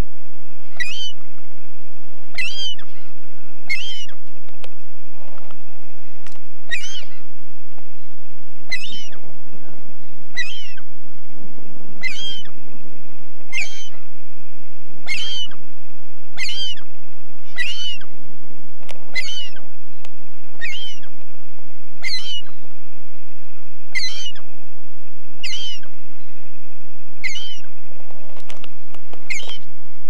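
A bird giving a short, high-pitched call over and over, evenly about every second and a half.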